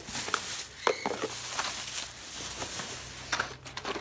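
Thin plastic shopping bag rustling and crinkling as hands rummage through it, with a few sharp crackles.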